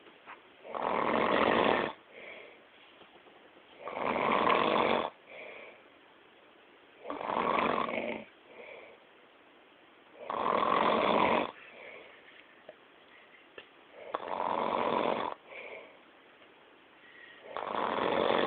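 Loud snoring: six long snores, one about every three and a half seconds, each followed by a shorter, fainter breath.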